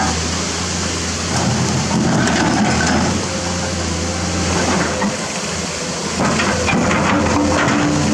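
Komatsu PC210 excavator's diesel engine running steadily, with rocks scraping and knocking against the bucket as it works the rock pile. The knocking comes thickest in the last couple of seconds.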